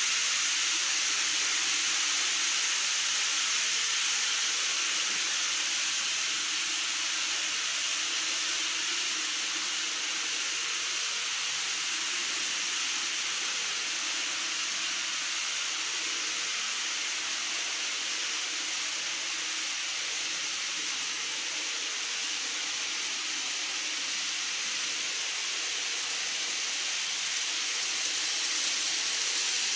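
TOMIX N-scale model trains running on the layout's track: a steady high rolling hiss with a faint motor hum underneath, growing louder near the end as a train approaches.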